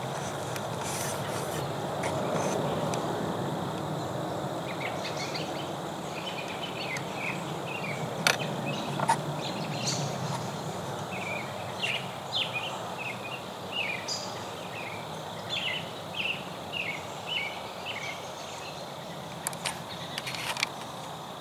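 Woodland ambience: a steady background hiss with a bird giving many short, repeated chirps through the middle, and a few sharp clicks.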